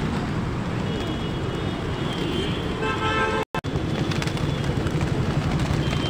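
Steady low rumbling outdoor noise, like traffic and open-air bustle, with a short pitched tone a little before the sound cuts out for a split second about three and a half seconds in.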